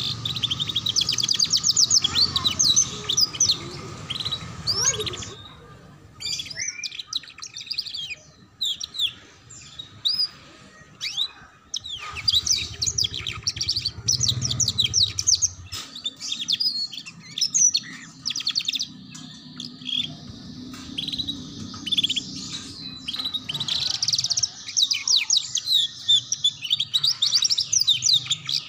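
Domestic canary singing in long runs of fast, high-pitched twittering trills, each run lasting a few seconds with short pauses between. This is the rapid chattering 'ngeriwik' song used as a master recording for young canaries learning to sing.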